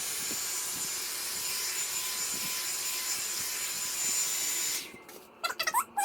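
Revlon hot air dryer brush running steadily, a rushing blow of air with a thin high motor whine, while straightening hair; it stops abruptly about five seconds in and music starts just after.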